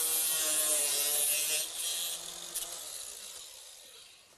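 Cordless angle grinder cutting through an old metal brake line: a high, hissing cut over a steady motor whine. About a second and a half in the cutting stops and the grinder winds down, fading away.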